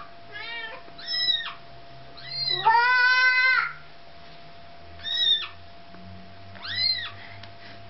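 Siamese kitten crying in distress at being held, with short, high mews that rise and fall, about five in all. About three seconds in comes one longer, lower and louder cry.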